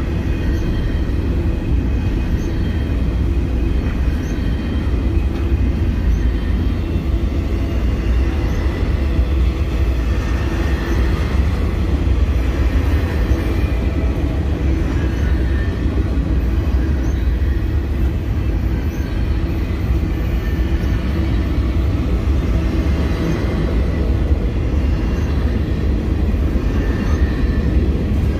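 Double-stack intermodal freight train of container well cars rolling past, its steel wheels rumbling steadily on the rails.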